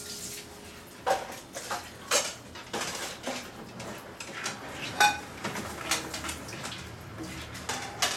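Blue-and-gold macaw's beak knocking and gnawing on the wooden cabinet molding: irregular sharp clicks and taps, the loudest about five seconds in.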